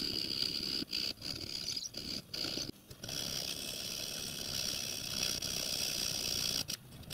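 Needle file rasping on a brass plate held in a vise, cleaning out its cut-outs, with a few short breaks between runs of strokes in the first three seconds and again near the end.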